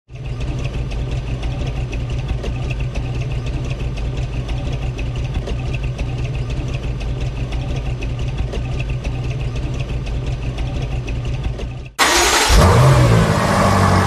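Car engine idling steadily. About twelve seconds in it cuts suddenly to a louder car engine accelerating, its pitch rising.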